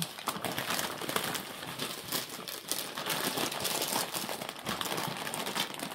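Packaging crinkling and rustling in continuous crackles as a tightly sealed package is unwrapped by hand.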